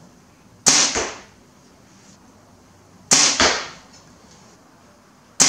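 Compound bow shot three times, about two and a half seconds apart, the last near the end. Each release is a sharp snap of the string, followed about a third of a second later by a second, lower thud of the arrow striking the target.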